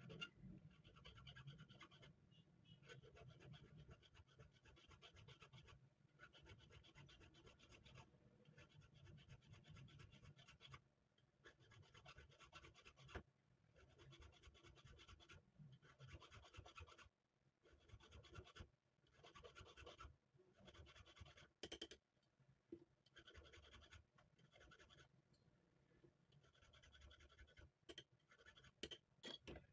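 Faint scraping in repeated strokes of a couple of seconds each, with short pauses between them and a few sharp clicks, as from a tool being worked against metal pistol parts.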